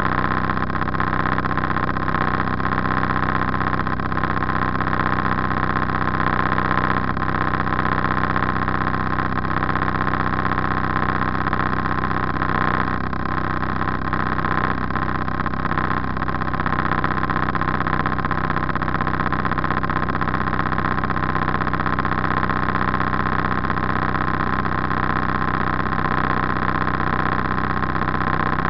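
Motor cruiser's engine running steadily at slow cruising revs, a constant even drone with no change in pitch.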